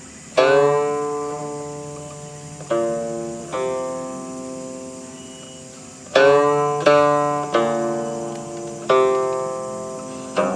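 Guqin played solo: about eight plucked notes, spaced unevenly, each ringing out and fading, several with a sliding pitch bend just after the pluck.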